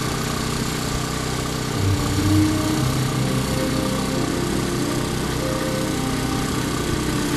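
Propeller airplane's piston engine droning steadily, swelling briefly about two seconds in.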